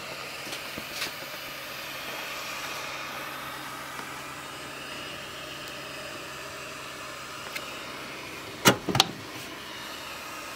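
Voxelab Aquila 3D printer standing powered on, its cooling fans running with a steady hum. Two sharp knocks in quick succession near the end.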